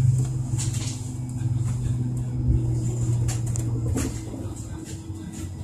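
Inside a trolleybus: the electric drive's low, steady hum fades out about four and a half seconds in as the trolleybus slows to a stop, with scattered clicks and rattles from the cabin.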